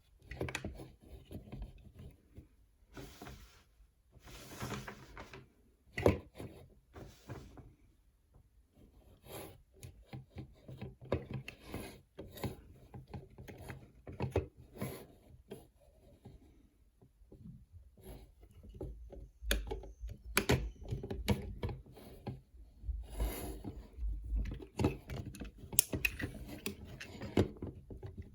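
Hard plastic action-figure parts being handled, rubbed and clicked together: irregular small clicks and scraping, with a few sharper snaps.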